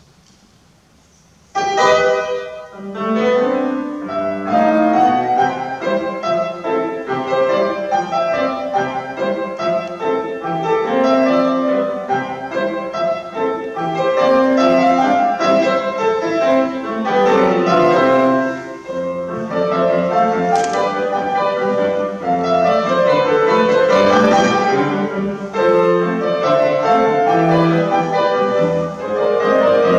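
Grand piano starting up sharply about a second and a half in after a quiet pause, then a recital piece of many quick notes and chords.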